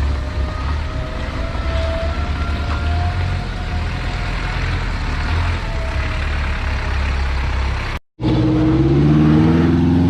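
Off-road 4x4 engine running with a deep steady rumble. About eight seconds in the sound cuts out for a moment, then an engine revs up, its pitch rising and then holding steady.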